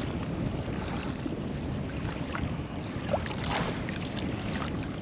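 Steady wind noise on the microphone and water moving around a fishing kayak, with a few faint clicks between about three and four seconds in.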